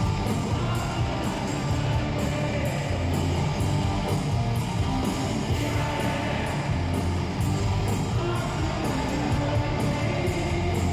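Hard rock band playing live in an arena: loud distorted electric guitars over drums with regular cymbal hits, and a voice singing at times.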